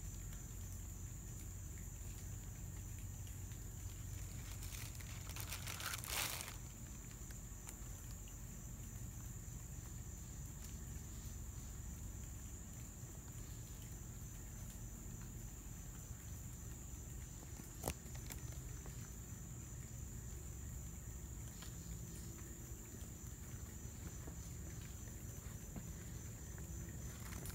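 A steady, high-pitched chorus of insects droning in the forest, with a short rustle about six seconds in and a single click later on.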